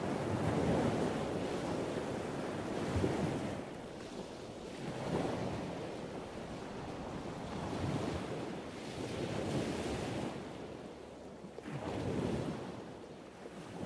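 Ocean waves washing ashore, the surf rising and falling in slow swells every few seconds.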